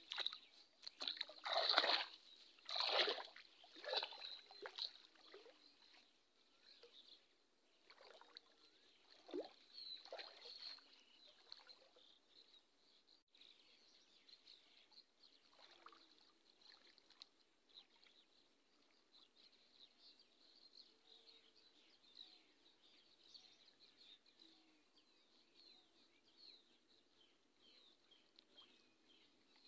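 Water splashing and sloshing around a person wading through thigh-deep floodwater. A run of loud splashes comes in the first few seconds and a few more follow, then only faint sloshing remains under a thin layer of small high chirps.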